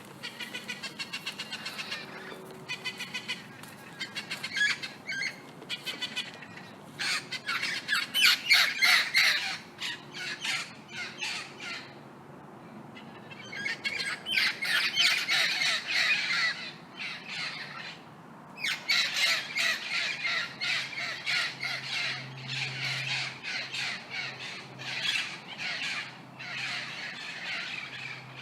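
Several parrots squawking in harsh, repeated calls, in bouts with short pauses between them.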